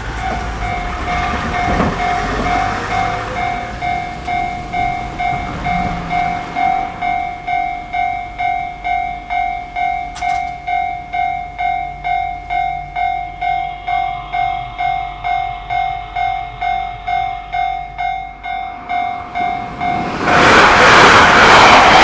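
Japanese level-crossing warning bell ringing in a steady two-tone clang, about two rings a second. About 20 seconds in, a Yamagata Shinkansen train rushes loudly through the crossing and drowns out the bell.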